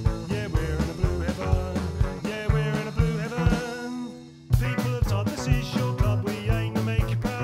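Low-budget rock-style football supporters' song with singing, drums and bass. It fades into a brief dip about four seconds in, then a song starts abruptly with a drum hit.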